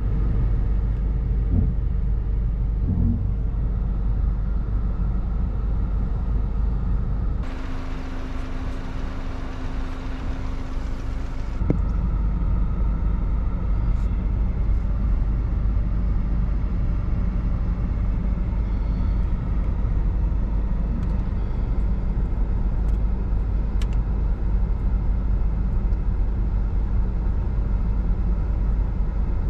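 Car engine running, heard from inside the cabin as a steady low rumble. About a quarter of the way in, a few seconds of brighter hiss with a steady hum briefly take over before the rumble returns.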